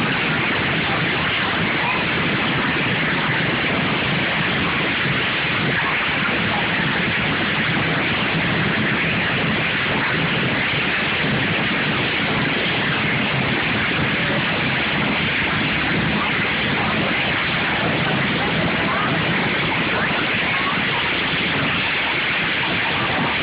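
Steady, dense din of derby lawn mower engines mixed with crowd voices, with no single sound standing out.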